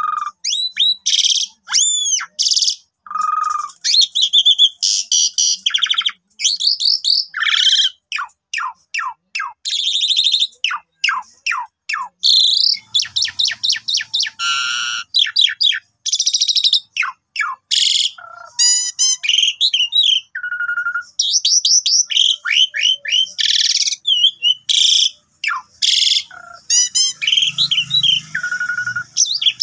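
Asian pied starling (jalak suren) singing a long, varied song: fast runs of clear whistled notes, sweeping glides and harsh rasping phrases, with only brief pauses between them.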